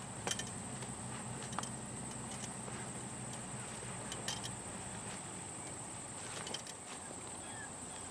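Crickets chirring steadily at a high pitch, with a few light metallic clicks and clinks scattered through as a fence tie-down anchor is turned into the soil by its handle.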